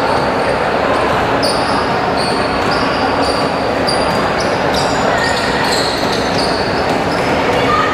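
Indoor basketball game: a ball bouncing on the hardwood court and many short, high sneaker squeaks, over a steady din of spectators echoing in a large hall.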